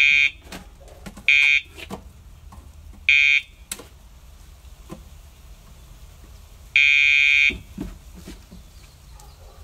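Remote dog-training collar's pager buzzing in short electronic bursts: three brief buzzes, then a longer one about seven seconds in. Each buzz is a cue telling the dog what to do, here with no correction.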